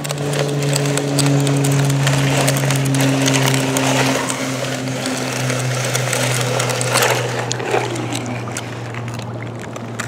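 Steady low drone of several held tones, like a motor running, over scraping and clicking as a steel toy bulldozer's tracks and blade are pushed through wet sand and into shallow water.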